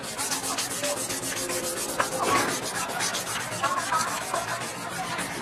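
A wooden cricket bat blade being sanded by hand: rapid, even back-and-forth scratchy strokes of abrasive on wood.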